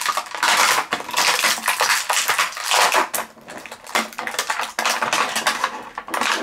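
Clear plastic toy packaging crinkling and crackling as it is handled and unwrapped by hand, a dense run of fast crackles with brief lulls.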